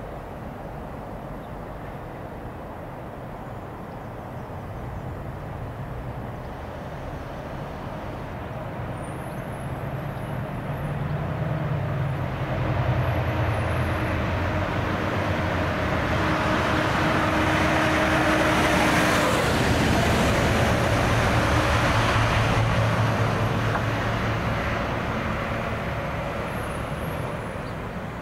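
Class 68 diesel-electric locomotive running light, with no train behind it, passing through: its diesel engine note grows louder from about a third of the way in, with wheel and rail noise loudest about two-thirds in as it goes by, then fades near the end.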